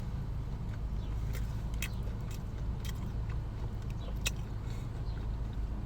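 Crispy fried chicken wings crunching in scattered sharp bites and chews, over the steady low hum of a car cabin with the engine running.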